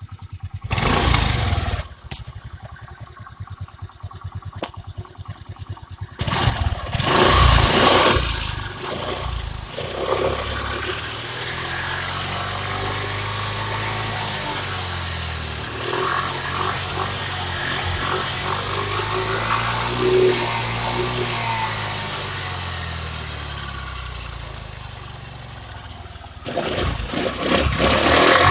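Suzuki Access 125 scooter's 124 cc single-cylinder engine starting and running. Its exhaust note rises and falls in pitch again and again as the throttle is opened and closed, with louder bursts a few seconds in and near the end.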